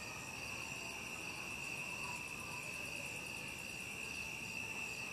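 Night chorus of crickets: a steady high trill, with a fainter, fast, even pulsing call above it.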